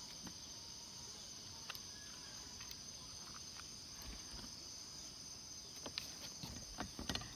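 Steady high-pitched chorus of crickets and other insects, with a few light clicks and knocks near the end.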